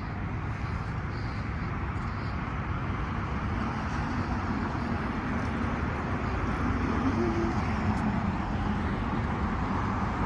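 Steady road traffic noise, a low rumble and hiss that slowly grows louder.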